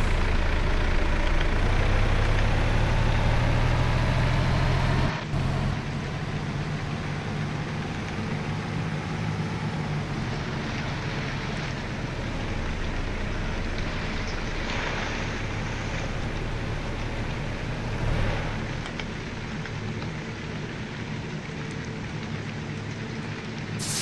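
Truck engine running under load, its pitch rising over the first five seconds before the sound drops off abruptly about five seconds in. Then steady engine, road and rain noise, with brief hissing swells about fifteen and eighteen seconds in.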